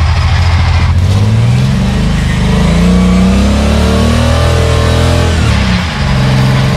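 Off-road rock crawler's engine revving up under load as it climbs over boulders, holding high revs for a few seconds, then dropping back toward idle near the end.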